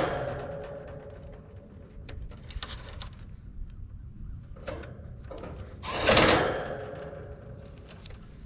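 Wires being handled and twisted together at a heat pump's control panel: faint rustling and small clicks, with two louder brushing swishes, one at the start and one about six seconds in.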